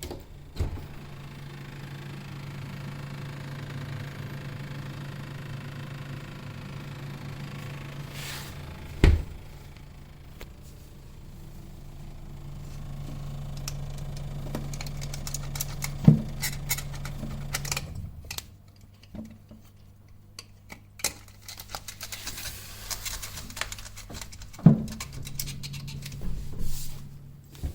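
Built-in Isande (Electrolux-made) fridge-freezer running with a steady low compressor hum, with light rattling and clicking and three sharp knocks. This is the fault noise of the fridge, where the running compressor sets the shelves and dishes inside vibrating.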